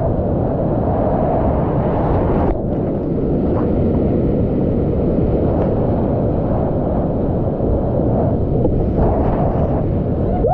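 Loud, steady roar of whitewater rapids rushing and splashing around a whitewater kayak as it runs down a rapid, heard close up from the kayak.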